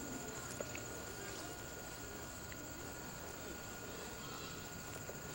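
Faint outdoor ambience: a steady, high-pitched insect trill, with faint voices in the background.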